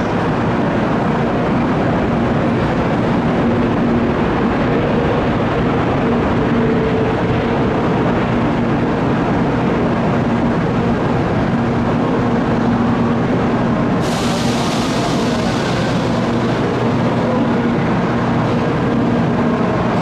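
Shinkansen bullet train running into the station: a steady rumble with a faint hum, and a brief hiss about fourteen seconds in.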